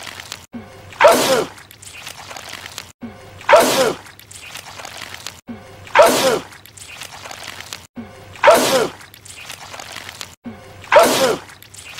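A man's sneeze, the same clip repeated five times about every two and a half seconds. Each is a short pitched wind-up ending in a loud, sharp burst.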